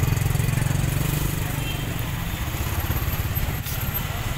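Engine of a bajaj auto-rickshaw idling close by in stalled traffic, with motorcycle engines and the voices of a street crowd around it.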